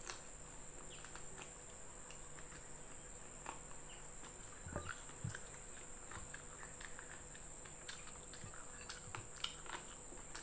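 Close-up eating sounds: chewing and mouth smacks over fried chicken and rice eaten by hand, with scattered small clicks and a soft low knock about halfway through, all over a steady high-pitched hiss.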